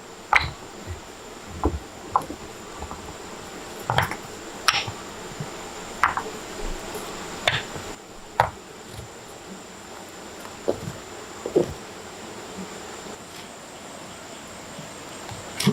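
A steady high-pitched insect drone, with about a dozen irregular sharp knocks and clacks over it.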